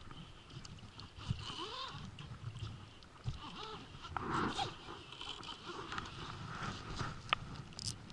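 A man's short grunts and murmured vocal sounds, a few of them over about four seconds, over steady wind and water noise.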